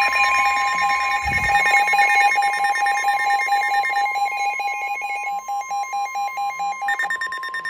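Several NOAA weather radios alerting at once: the steady 1050 Hz Weather Alert Tone, mixed with rapid electronic alarm beeping at several pitches. The beeping layers drop in and out, with one stopping about four seconds in and another returning near the end.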